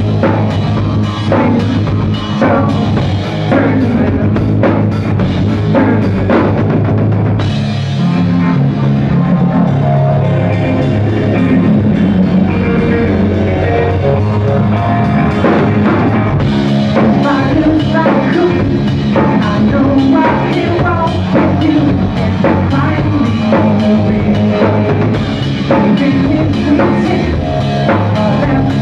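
Live rock band playing loud: a drum kit keeping a steady beat under electric guitars, with cymbal crashes coming in about a quarter of the way through, again past the middle, and near the end.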